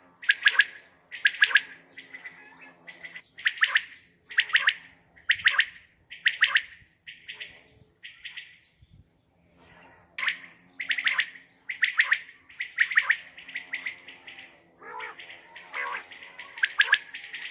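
Common quail calling: a run of sharp, high, clipped calls, about one a second, breaking off for a couple of seconds about eight seconds in before resuming.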